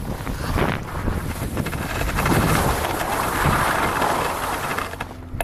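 Skis sliding and scraping over packed snow, a steady hiss that swells from about two seconds in and eases off near the end as the skier slows, with wind rumbling on the microphone.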